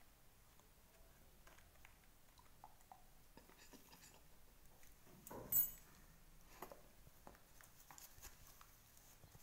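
Faint scratching and small clicks of a metal nail file worked over a baby monkey's fingernails, with one brief louder noise about five and a half seconds in.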